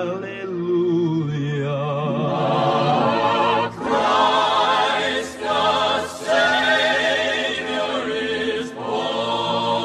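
Music: a male vocal quartet singing a slow Christmas carol in close harmony, the voices wavering with vibrato and pausing briefly between phrases.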